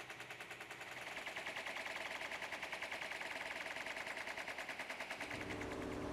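Power breaker hammering at the ground around a buried fuel tank, a faint, fast, even rattle of blows. Near the end a deeper steady engine hum comes in.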